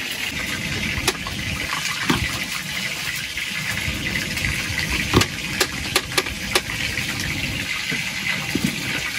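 Chicken skewers deep-frying in hot oil: a steady sizzle with scattered sharp pops and crackles.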